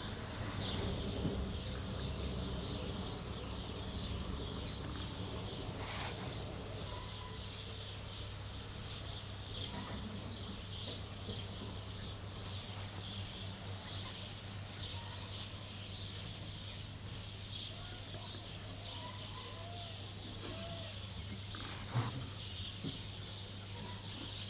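Birds chirping continually over a steady low hum, with a sharp click about six seconds in and another near the end.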